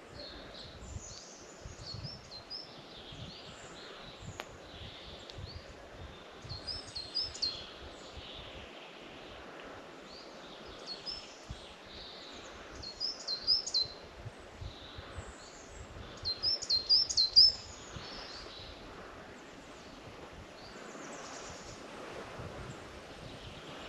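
Birds singing: short, high phrases stand out four times, a few seconds apart, the loudest about two-thirds of the way through, among fainter chirps. A low, uneven rumble runs underneath.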